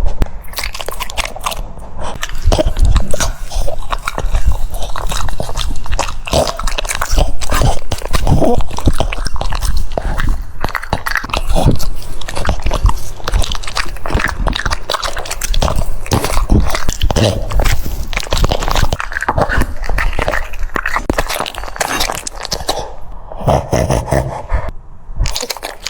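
A French Bulldog biting and chewing crunchy food: a steady run of rapid crunches.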